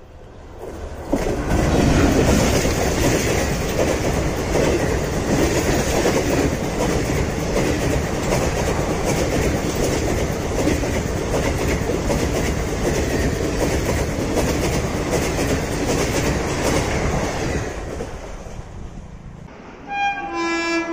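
Indian Railways express train passing at speed: a loud rumble with a rapid clatter of wheels over rail joints, rising sharply about a second in and fading away near the end. A short horn blast follows in the last second.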